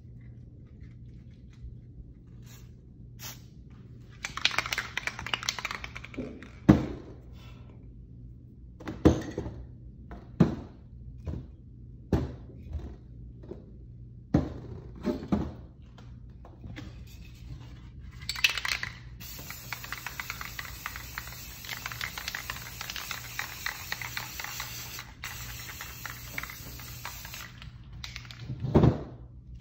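Aerosol spray paint can spraying in a long continuous hiss of several seconds, after a shorter spray earlier on. In between come several sharp knocks on the work table, over a low steady hum.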